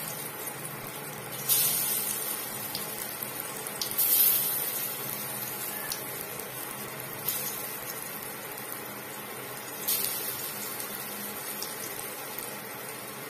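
Bottle-gourd dhoka pieces sizzling steadily as they fry in hot mustard oil, the sizzle swelling louder about four times as more pieces are slid into the oil.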